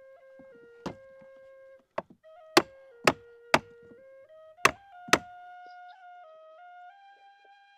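Flute melody with a run of about seven sharp wooden knocks, closely spaced in the middle, as a rib is knocked into place inside a birch bark canoe.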